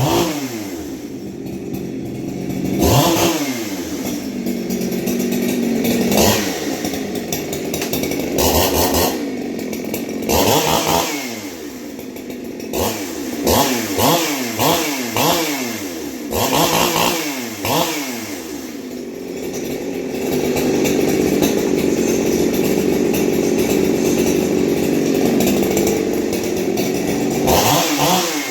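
Ported Husqvarna 372XP-clone two-stroke chainsaw being revved: about a dozen quick throttle blips, each snapping up in pitch and falling back, several in fast succession around the middle. Past the middle it is held at a steady speed for several seconds before another blip near the end.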